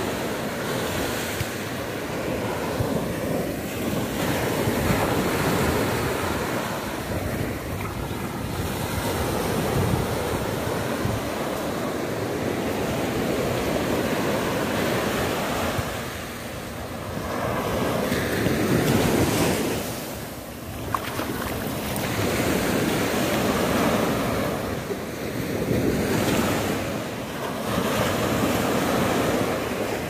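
Surf breaking and washing up a sandy beach, the rush of water swelling and ebbing every few seconds, with wind buffeting the microphone.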